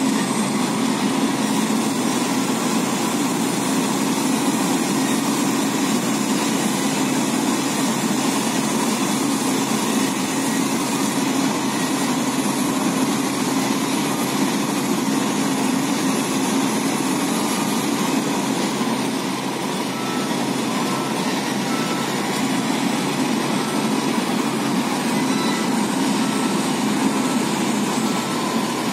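Heavy diesel engines of a dump truck and a wheel loader running steadily, with a constant low hum. A faint repeated beep sounds in the last third.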